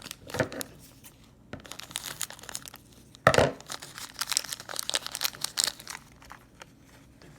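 Packaging of a mystery pin blind pack crinkling and tearing as it is opened, in scattered crackles, with one loud sharp crackle about three seconds in.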